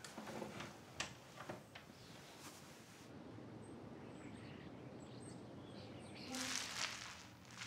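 Quiet room with faint rustling and a few light clicks as someone moves about; faint bird chirps in the background in the middle, and a louder rustle near the end.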